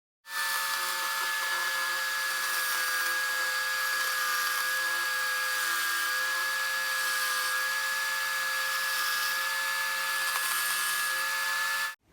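Power tool mounted in a homemade table running steadily with a high, even motor whine; it cuts in abruptly and stops abruptly.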